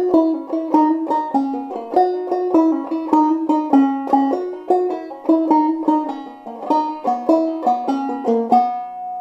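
Five-string banjo played clawhammer style in open C tuning with the fifth string raised to E, running through the A part of a jig in a steady stream of quick plucked notes. It closes on a single note left ringing near the end.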